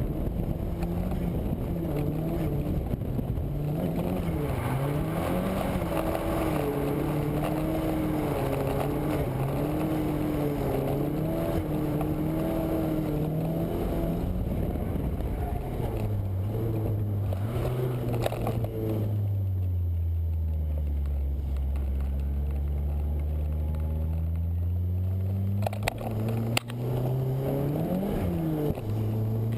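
Nissan S13's engine heard from inside the car, its pitch swinging up and down under throttle changes through the first half. It drops to a low, steady run around the middle and picks up again near the end. A constant hiss of road and water noise runs underneath, with a couple of sharp clicks late on.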